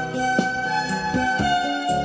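Instrumental Christian worship music: held melody notes over a steady beat, with a strong percussive hit about once a second.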